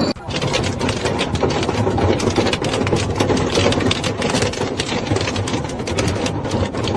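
Machinery running with a rapid, continuous clatter of ticks over a low rumble.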